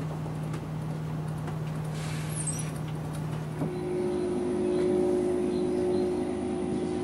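A steady engine hum whose pitch jumps higher about three and a half seconds in.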